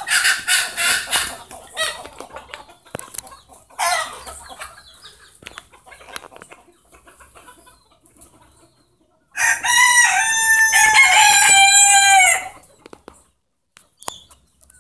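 Rooster crowing: one long crow of about three seconds, starting about nine seconds in and dropping in pitch at its end. Shorter calls come in the first two seconds and again about four seconds in.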